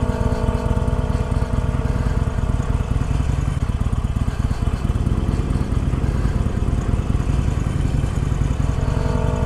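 Harley-Davidson Iron 883 Sportster's air-cooled V-twin engine running at low speed as the bike rolls along, a steady low rumble.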